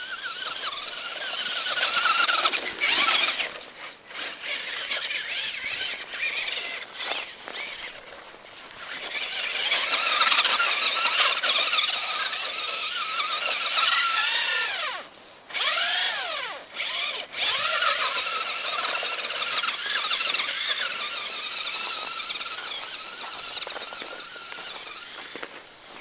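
Traxxas Rustler electric RC truck's brushed motor and gears whining, the pitch rising and falling with the throttle, with a couple of brief drops near the middle.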